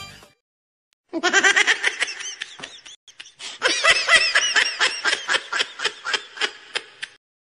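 Laugh-like sound: quick runs of short, high, pitched 'ha-ha' notes, about five a second, in two bursts with a brief break about three seconds in.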